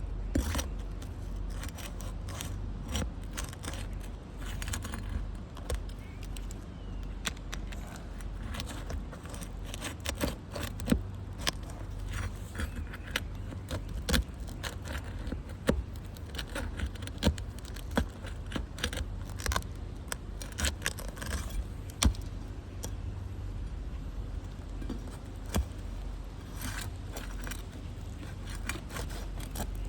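Asphalt roof shingle being worked loose by hand and tool: repeated scraping, crackling and sharp clicks as the sealed shingle is pried up, over a steady low rumble. The shingle is failing a repairability test, typical of brittle shingles that crack rather than lift cleanly.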